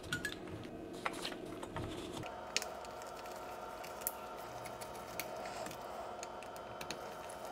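Faint scattered clicks and ticks of a small screwdriver and metal screws as a graphics card's cooler is screwed back onto the board, over a low steady hum.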